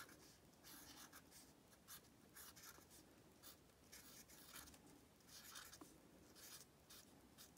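Faint, irregular strokes of a felt-tip permanent marker writing letters on the painted edge of a stretched canvas.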